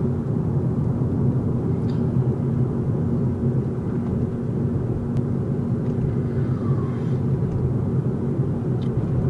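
An engine running at a steady speed, a constant drone with no change in pitch.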